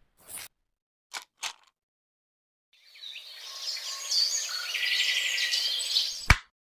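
Three quick swoosh effects in the first second and a half. From about three seconds in, birds chirping over an outdoor ambience fade up, then cut off at a sharp hit near the end.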